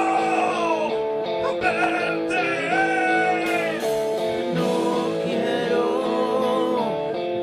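Live rock band playing a song: electric guitar, keyboard and drums under a singer's voice.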